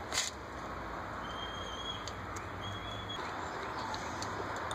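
A single light metal clink about a quarter second in, from the ratchet and socket working the rusted nuts off the starter solenoid's studs, followed by low steady background noise with a couple of faint ticks and two faint high whistle-like tones.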